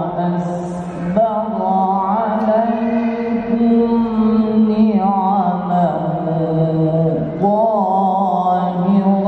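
A man reciting the Qur'an in the melodic tilawah style into a microphone, holding long notes with ornamented turns. He breaks off briefly about a second in and again about seven seconds in.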